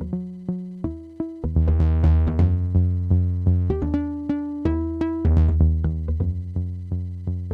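Eurorack modular synthesizer patch playing a rhythmic sequence of short stepping notes over a low bass, with drum-machine hits, run through the Endorphin.es Ghost effects module.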